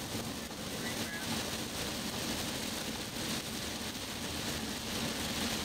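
Steady road and engine noise inside a moving car, with wind rushing against it.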